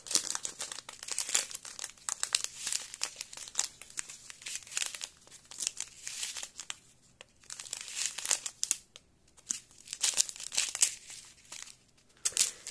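Small plastic packets of diamond-painting drills being handled and shifted, crinkling in quick, irregular crackles with a couple of short pauses.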